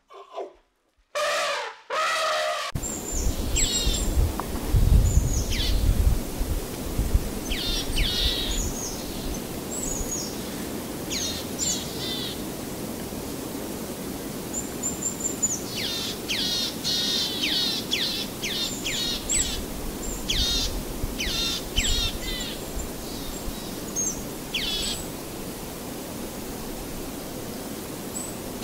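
Short elephant trumpet calls in the first two seconds or so, then small birds chirping over a steady low outdoor rumble: quick, steeply falling chirps in clusters, with a pause of a couple of seconds about halfway through.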